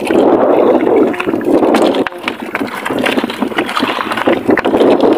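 Choppy sea water sloshing and slapping against the hull of a small wooden outrigger boat, with wind noise on the microphone, as an even loud rush full of irregular small splashes.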